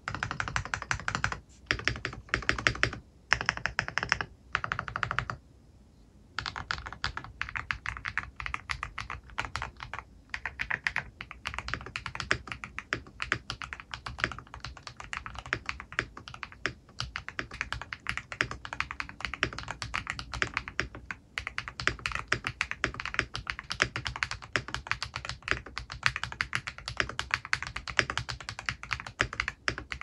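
Typing on a 65% mechanical keyboard fitted with lubed Holy Panda V2 tactile switches. A few short bursts of keystrokes with brief pauses, a gap about six seconds in, then fast continuous typing.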